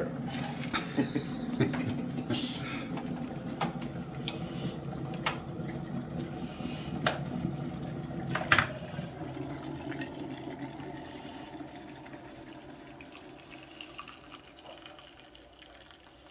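Electric kettle heating water to the boil: a steady rushing rumble that dies away over the second half, with several sharp clicks in the first half.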